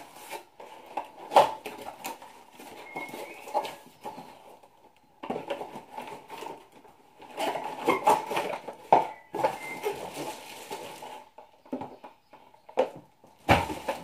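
Cardboard box and plastic wrapping being handled as a new hair dryer is unpacked: irregular rustling, scraping and sharp clicks with short pauses.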